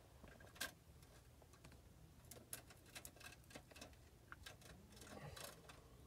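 Near silence broken by faint, irregular clicks and light taps of hands working materials into a foundation opening, more frequent in the middle and again near the end.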